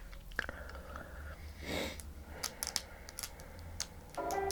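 Close-up eating sounds: sharp scattered clicks and cracks of crab shell being broken and chewed, with a soft sucking or slurping sound about two seconds in. Background music starts near the end.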